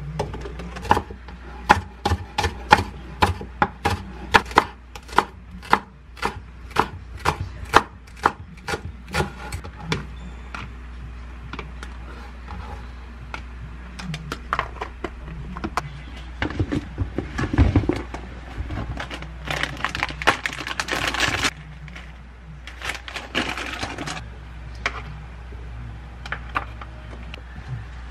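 Kitchen knife slicing green onion on a wooden cutting board: a quick, even run of chops, about two or three a second, for roughly the first ten seconds. Then come scattered knocks and a stretch of rustling and scraping as the cut onion is handled.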